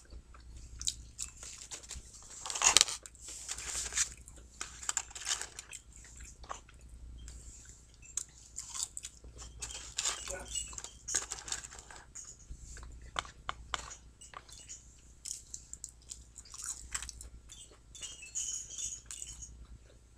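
Close-up chewing and mouth noises of someone eating McDonald's french fries, with crinkles from the paper fry carton being handled. Irregular small clicks and crackles run through it, loudest about two and a half seconds in.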